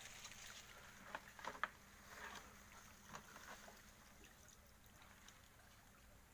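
Faint water dripping and trickling back into the river as a wet fishing line with floats and weights is lifted out over the side of a small boat. A few short, sharper clicks come between about one and two seconds in, and another about three seconds in.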